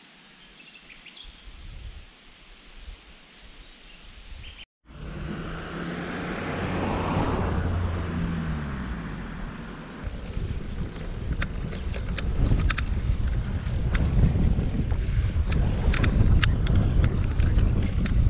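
Wind buffeting the microphone as a low rumble, which starts after a cut about five seconds in. Before the cut there is only faint outdoor background. In the second half a scatter of sharp clicks sits over the rumble.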